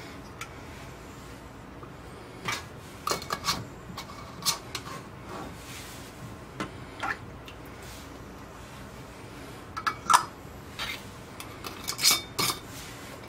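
Metal canning lids clinking as they are lifted from a ceramic bowl with a lid wand and set onto glass mason jars, with the rings going on: irregular sharp clicks and clinks, the loudest about ten seconds in.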